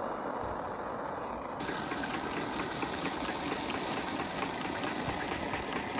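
Small live-steam toy engine running: a steady hiss, then about one and a half seconds in a fast, even chuffing of exhaust puffs, about five a second.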